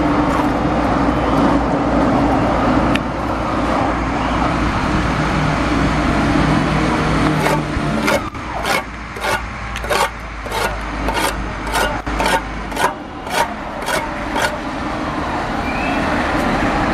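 Trowel scraping and spreading cement mortar along the top of a concrete beam: a run of quick strokes, about two a second, starting a little before the middle and stopping a few seconds before the end, over a steady background rumble.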